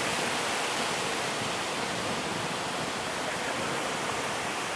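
Ocean surf breaking and washing on a sandy beach: a steady rushing hiss.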